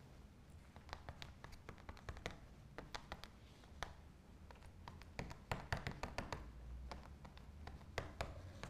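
An eraser dabbing and rubbing over a pencil sketch on watercolour paper, making many irregular light taps and scratches.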